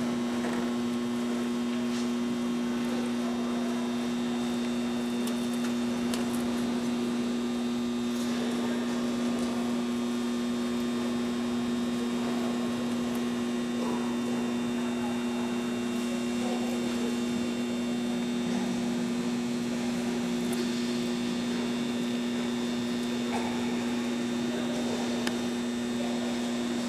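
Steady electrical mains hum, a constant low drone, over faint indistinct background noise.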